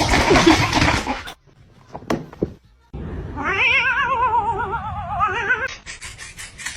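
A cat giving one long, wavering meow lasting a couple of seconds, starting about three and a half seconds in. A loud rush of noise fills the first second, and a quick run of clicks comes near the end.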